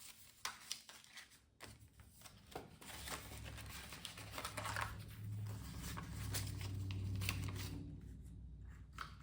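Paper cash and envelopes being handled: rustling and crinkling with scattered light taps, and a low rumble through the middle few seconds.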